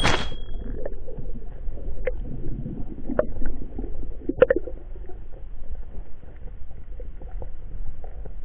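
Underwater ambience picked up by a camera in its housing during a breath-hold dive: a steady low rumble of water moving past, with a few short clicks and pops.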